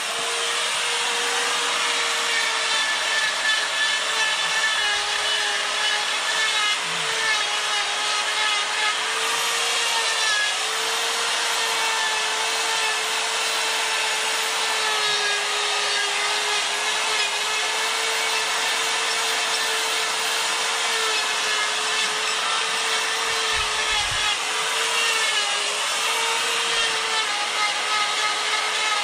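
Electric die grinder fitted with a Saburrtooth carbide burr, running continuously as it grinds wood off a chainsaw carving to clean up the raised letters. A steady high motor whine over a rasping grind, dipping a little in pitch as the burr bites.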